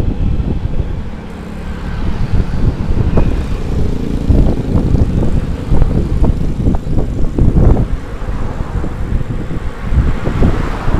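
Wind buffeting the microphone on a moving bicycle, an uneven low rumble, mixed with motorbike and car traffic passing close by.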